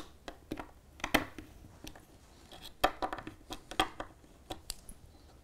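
Scattered light clicks and taps from a small hand screwdriver driving the mounting screws of a model railway point motor into its base, with the motor's casing handled under the fingers.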